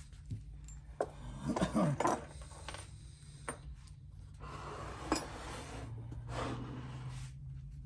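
Small metal parts clinking and rattling as they are handled on a workbench, then a two-stroke engine's aluminium cases knocking once and scraping as the engine is turned around on its wooden stand.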